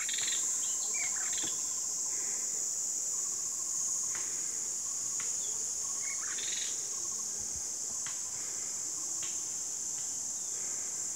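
Steady high-pitched insect drone, with birds chirping and calling over it now and then.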